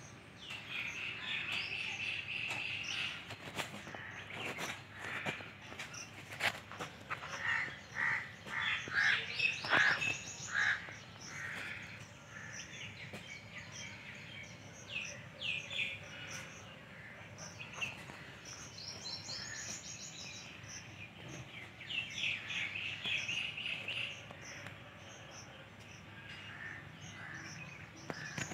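Several songbirds chirping and calling in repeated bursts of short high notes, over a low steady outdoor background; the densest run of notes comes about ten seconds in.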